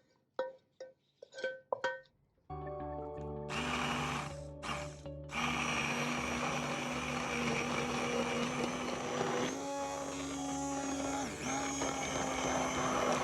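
A few light clinks, then an electric blender starts about two and a half seconds in and runs steadily, puréeing the butter chicken sauce. It stops briefly twice near the start, and its motor pitch shifts slightly a couple of times as the load changes.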